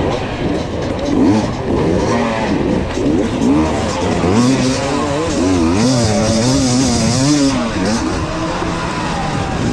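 Hard enduro dirt bike engine revving up and down rapidly as the throttle is worked over rough terrain, the pitch rising and falling every second or so.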